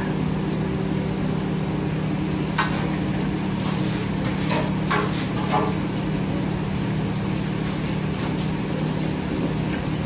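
Busy restaurant kitchen: a steady low hum with a constant sizzling hiss from eggs and taquitos frying in oil, and a few sharp clicks and knocks of tongs and utensils against the pans a few seconds in.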